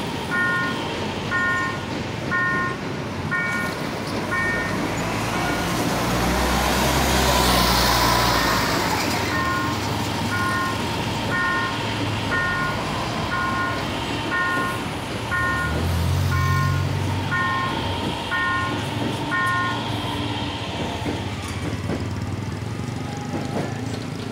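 Autotrol electronic level-crossing bell ringing in a steady, evenly repeated ding over the noise of a commuter train passing, which swells loudest about seven or eight seconds in. The bell stops about twenty seconds in.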